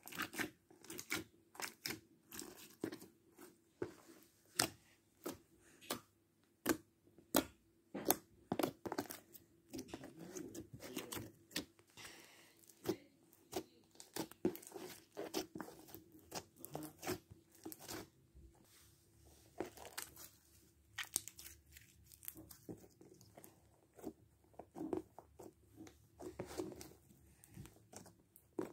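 Slime being kneaded and squeezed by hand against a plastic tray, giving a continuous run of irregular sticky clicks and pops, several a second.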